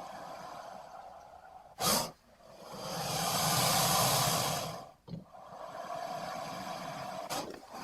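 Alligator or crocodile hissing: a sharp, loud exhale about two seconds in, then a long hiss that swells and fades over about two and a half seconds, and a short puff just after. A steady background hiss runs under it.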